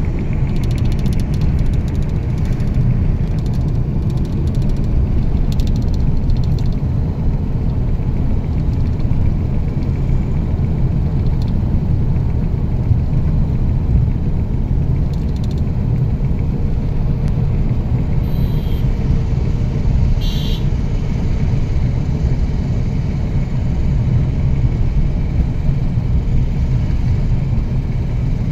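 Car engine and tyre noise heard from inside the cabin while driving at a steady speed: a steady low rumble. Two short high-pitched tones sound about two-thirds of the way through.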